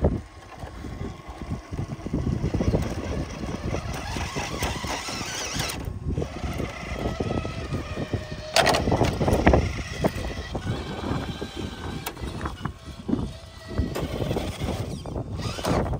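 Six-wheeled RC scale rock crawler driving over rock: its electric motor and gears whine while the tyres grind and knock against the stone, with a louder stretch of scraping about halfway through.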